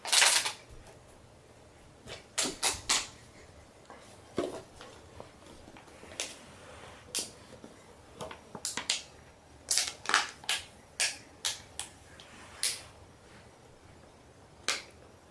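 A series of short, sharp clicks and crunches at irregular intervals, the loudest right at the start.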